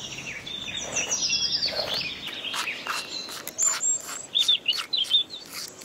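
Small birds chirping and twittering: a quick run of high, falling chirps and trills in the first two seconds, then more short chirps past the middle. Scattered sharp clicks run among them.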